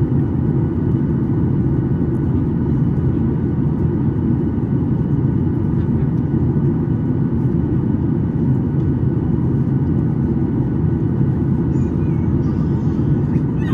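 Steady cabin noise inside a Boeing 737 MAX 8 in flight: the deep rumble of its CFM LEAP-1B engines and the airflow over the fuselage, with faint steady tones above it.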